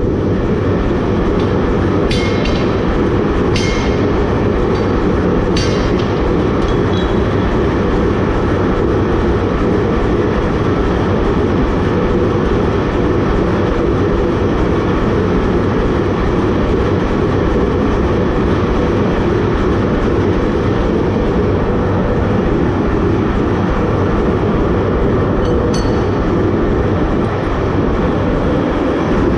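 Chambersburg 500 self-contained power hammer running steadily with a loud, even mechanical rumble. A few sharp metallic clinks come a couple of seconds in and again near the end.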